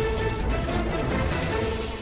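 Background music with sustained notes over a steady low bass.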